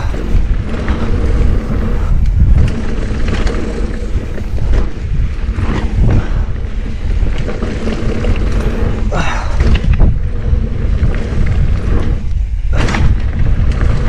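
Wind noise buffeting the microphone on a mountain bike riding fast down a dirt trail, with the tyres rolling over dirt and a few short knocks and rattles from the bike over bumps.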